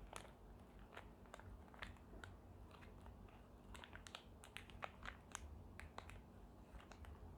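Faint handling noise: scattered light clicks and crinkles at an irregular pace, a little busier in the middle, over a low room hum.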